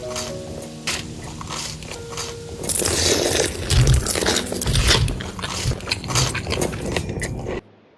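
Crunchy food being bitten and chewed close to the microphone, growing louder and denser about three seconds in, then cutting off abruptly just before the end.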